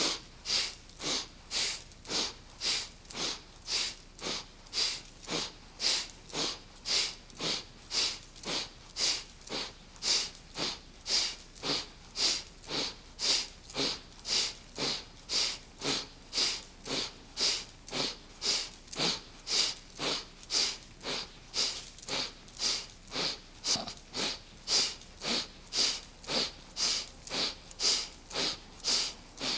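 A woman's short, forceful breaths in a steady rhythm of about two a second, each one paced to a hand pushing out in a Kundalini yoga breathing exercise.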